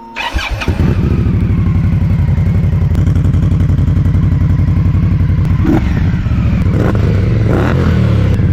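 Indian Scout Bobber V-twin fitted with the Stage 2 Indian Performance exhaust. It comes up to speed in the first second, then idles with an even, rapid low pulse, with a few short throttle blips in the second half.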